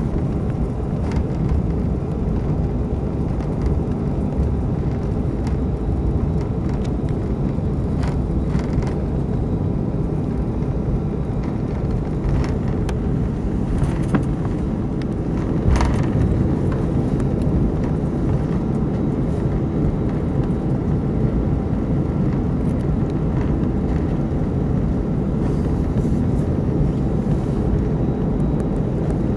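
Cabin noise of an Airbus A319 taxiing: the steady low rumble of its jet engines at idle and the rolling gear, with a few brief knocks.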